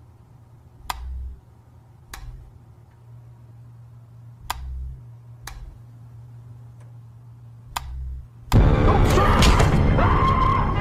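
Low steady hum broken by five sharp clicks, a second or more apart, some followed by a dull thud. About eight and a half seconds in comes a sudden loud burst of yelling and commotion: a jump-scare prank.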